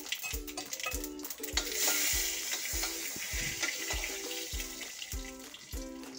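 Cumin and mustard seeds sizzling in hot palm oil in a steel kadhai while being stirred with a spoon: the frying stage of a tadka. The sizzle grows loudest about two seconds in and eases near the end, under background music with a steady beat.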